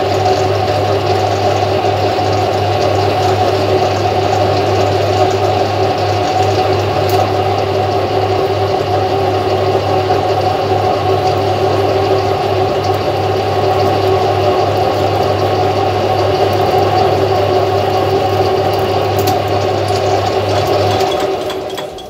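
Benchtop metal lathe running with its three-jaw chuck spinning while the tool faces the end of a small bar: a steady motor and gear hum with a constant whine. The hum falls away about a second before the end as the spindle is switched off and winds down.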